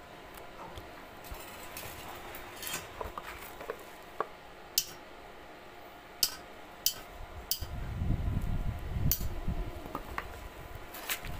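Scattered sharp metallic clinks and taps of steel rebar pieces and a hammer being handled on a concrete floor. A low rumbling noise joins in for about two seconds near the end.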